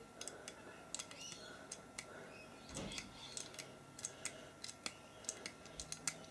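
Faint, irregular light clicks and taps, several a second, of small model parts and hand tools being handled on a tabletop, a little louder about three seconds in.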